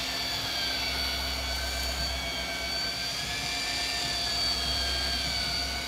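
Sportfishing boat's engine running steadily under way while trolling, a constant low drone with a thin high whine over it, along with the rush of the wake.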